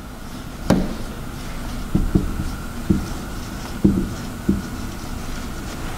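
Felt-tip marker writing on a whiteboard: about six short taps and knocks as the tip strikes and moves across the board.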